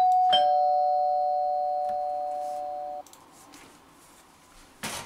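Two-note ding-dong doorbell chime: a higher note, then a lower one about a third of a second later, both ringing on and fading for about three seconds before cutting off abruptly. A short click or knock comes near the end.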